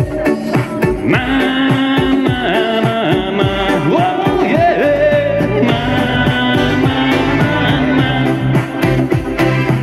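Estonian pop song playing, its melody line sliding up and down between notes over a steady backing.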